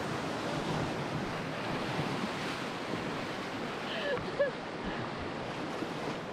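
Whitewater of a river rapid rushing around an inflatable raft, a steady rush of water, with wind buffeting the microphone.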